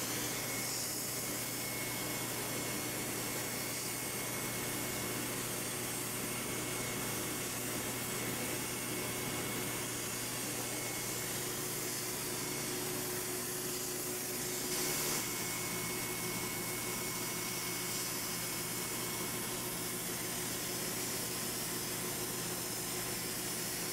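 Turbine HVLP spray gun running steadily, a constant motor hum under the hiss of air spraying liquid rubber coating.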